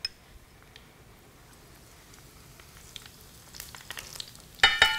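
Panch phoron seeds spooned into hot oil in a frying pan: faint ticks at first, then a sudden loud burst of sizzling and clatter near the end.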